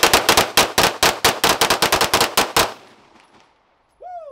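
Rapid string of shots from a 9mm Glock 19X pistol fitted with a GFLEX binary trigger, which fires on both the pull and the release, at about six shots a second. The firing stops a little under three seconds in and the echo dies away. A short pitched call that rises and falls starts just before the end.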